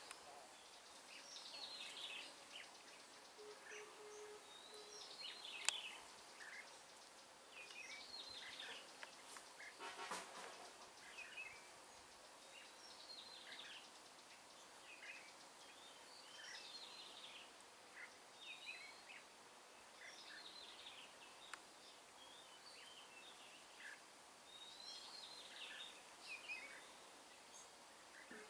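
Red-whiskered bulbul singing short warbled phrases, repeated every second or two. There is a sharp click about six seconds in and a brief rattle about ten seconds in.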